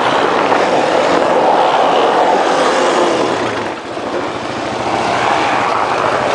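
ATV engine running steadily, dipping briefly a little past halfway and then picking back up.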